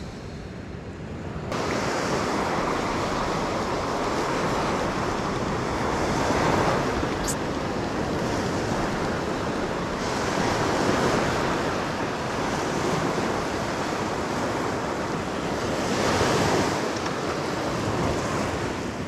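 Small ocean waves breaking and washing up a sandy beach, with wind on the microphone. The surf swells about every five seconds and grows louder about a second and a half in.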